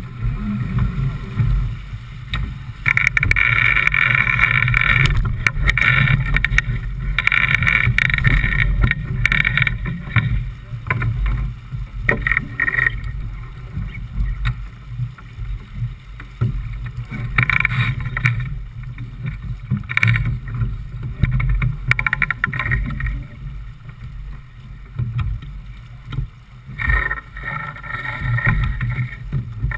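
J/24 keelboat under sail: a steady low rumble of wind and water on the onboard microphone, with louder rushing noise swelling and fading every few seconds.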